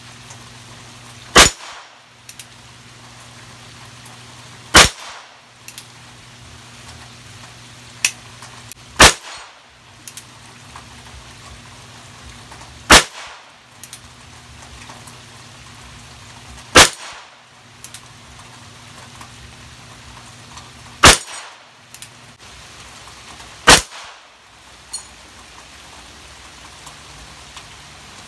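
Ruger Wrangler single-action .22 LR revolver fired one shot at a time, with sharp cracks spaced a few seconds apart.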